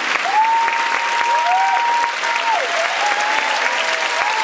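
Theatre audience applauding steadily through a curtain call. Over the clapping come a few long, high held calls that glide up at the start and fall away at the end, the longest lasting about two seconds.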